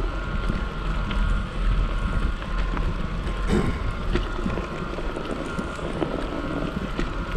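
Strong wind buffeting the microphone as a steady low rumble, with scattered small knocks and a faint steady whine under it.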